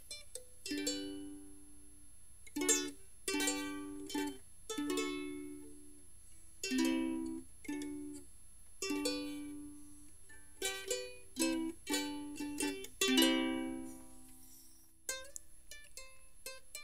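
Background music: a plucked string instrument playing a run of notes, each starting sharply and fading away.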